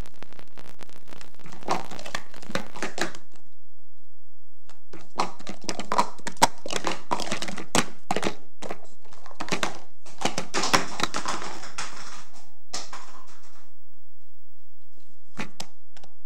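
Plastic speed-stacking cups clattering in quick runs of clicks as they are stacked up and brought down in the cycle sequence. There are two runs with a pause of about two seconds between them, then a few single taps near the end.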